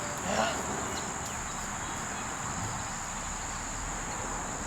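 Insects chirping in a steady, high-pitched background chorus.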